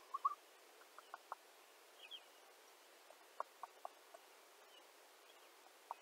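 A mockingbird calling faintly in short, scattered notes. There is a quick cluster right at the start, a run of brief clipped notes around the middle, and a few higher chirps.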